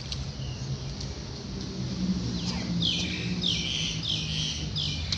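A bird calling four times in quick succession a little past halfway: short, high calls that each drop in pitch. Under it runs a steady low rumble.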